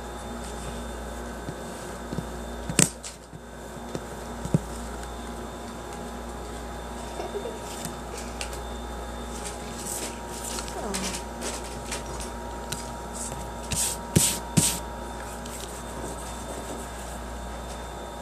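Handling noises from hands and small objects at a table: a few sharp clicks and knocks with light scrapes and rustles in between, most between about 10 and 15 seconds in, over a steady electrical hum.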